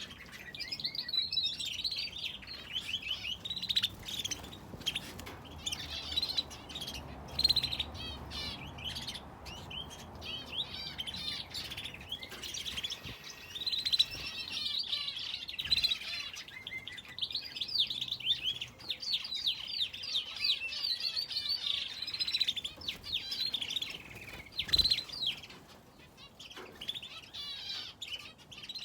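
Aviary finches and a canary chirping and calling continuously, many short overlapping chirps and trills. There are a couple of short knocks partway through.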